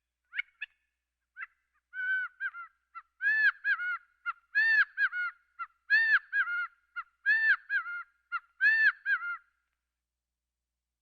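Gambel's quail calling: a few short single notes, then a run of about six repeated phrases, each a loud arched note followed by two or three quicker notes.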